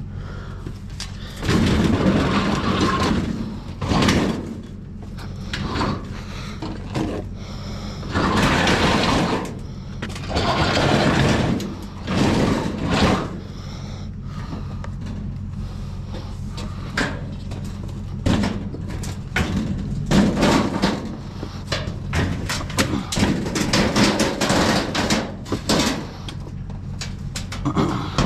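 Metal clunks, scrapes and rattles of a glass-top electric stove being tipped, lifted and shifted by hand. A run of quick knocks comes in the second half, over the steady low hum of an idling engine.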